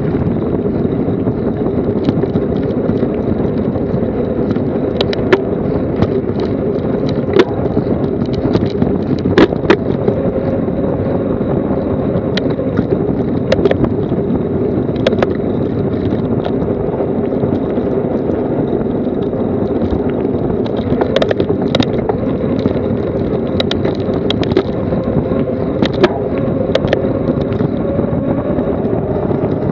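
Mountain bike on a fast descent of a paved road: a steady rush of tyre rumble and wind on the action camera, with scattered sharp clicks and knocks from the bike over bumps.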